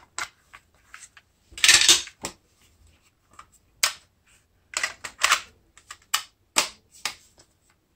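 Handling clicks and clacks of a compact cassette being taken from its clear plastic case and loaded into a Sony Walkman cassette player, the hinged door opened and pressed shut. Separate sharp clicks with a short rattle about one and a half seconds in.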